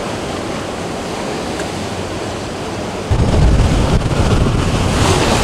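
Wind and rushing, choppy water around a sailboat under sail in a strong breeze. About three seconds in, wind buffeting the microphone takes over, louder and deeper.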